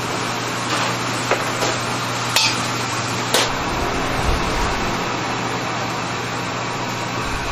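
A steel ladle and wok clinking sharply against each other and the plate a handful of times as an omelette is slid onto fried rice, over a steady mechanical hum.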